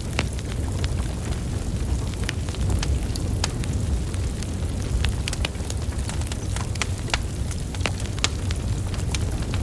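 Wood fire burning: a steady low rumble of flames with irregular sharp crackles and pops from the burning logs, several a second.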